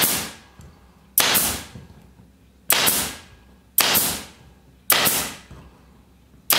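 Upholstery stapler firing staples through a metal hidden-seam tack strip into plywood: about five sharp cracks, one every second or so, each with a short fading tail.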